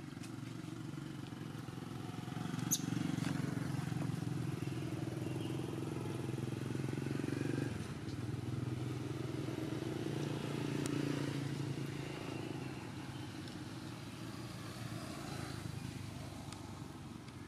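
A motor vehicle's engine running, a steady low drone that swells about three seconds in, eases near eight seconds and swells again around eleven seconds. There is a single sharp click near three seconds.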